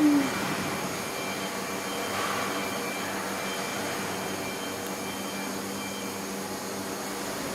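Ricardo diesel generator set running with a steady drone and whine, made up of several constant tones over a mechanical hiss. A brief falling squeal right at the start is the loudest moment.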